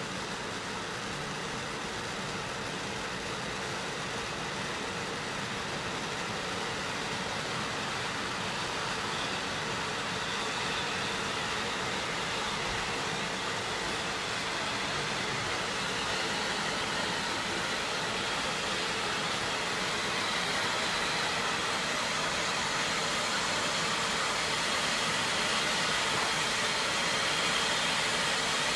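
Firework ground fountains spraying sparks, a steady rushing hiss that grows slowly louder.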